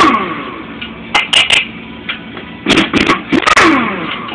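Metal parts of a Ford A4LD automatic transmission knocking and scraping as its rear end is worked apart by hand. There are clusters of sharp clanks at the start, about a second in and around three seconds, some trailing into a scrape that falls in pitch.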